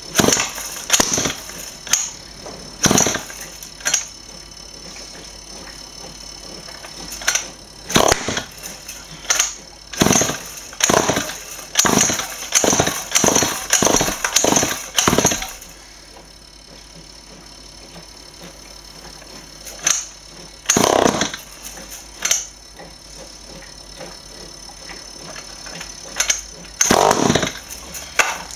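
Small two-stroke engine being pull-started again and again on hydrogen (HHO) gas: short bursts of cranking and sputtering, including a quick run of about a dozen in a row, none catching into steady running. The builder puts the failure down to the engine drawing too much hydrogen.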